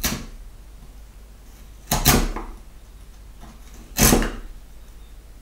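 Wood chisel paring chips from a notch under hand pressure: a short crunch each time a chip splits away, three times about two seconds apart.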